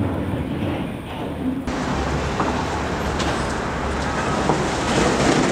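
Tunnel boring machine grinding through the concrete headwall at breakthrough: a steady rumbling noise that turns brighter and harsher abruptly about a second and a half in.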